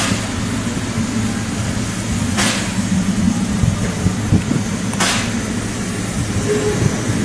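Railway locomotive running with a steady low rumble, cut by three short bursts of hiss about two and a half seconds apart.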